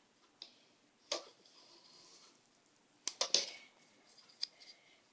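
Soft wooden clicks and knocks from a rigid heddle loom as a pick is woven: a single click about a second in and a quick cluster of knocks around three seconds in.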